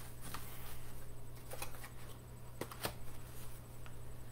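Light handling noises: a few short clicks and soft knocks of objects being moved, over a steady low hum.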